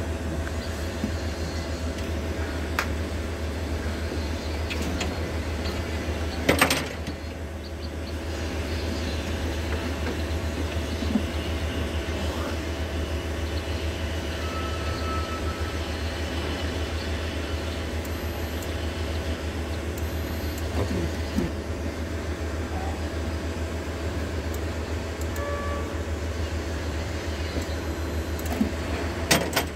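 A steady low hum, with fainter steady higher tones over it, broken by a sharp knock about seven seconds in and two more close together near the end.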